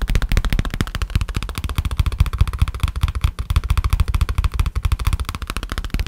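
Rapid fingertip tapping on a black faux-leather case, a quick stream of many taps a second, close to the microphone.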